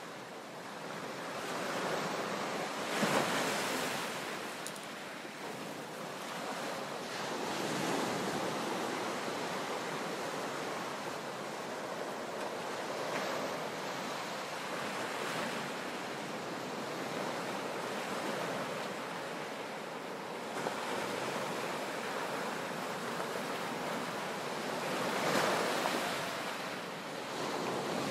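Sea waves surging and crashing into a sea cave, a continuous wash of surf with a swell every few seconds; the strongest crashes come a few seconds in and near the end.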